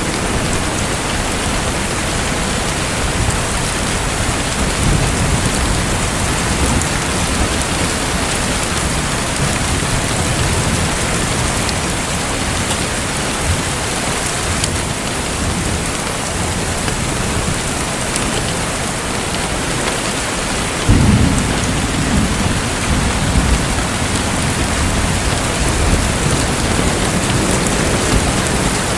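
Steady hiss of falling or splashing water, rain-like, with a low rumble that swells about two-thirds of the way through.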